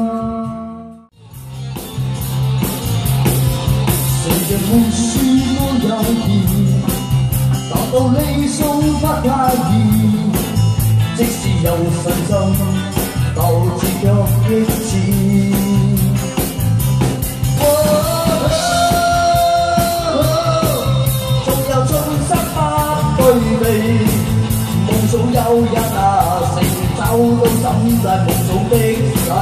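Male vocalist singing a rock-style song over a live band with drum kit and guitar. The music drops out briefly about a second in, then a new song starts.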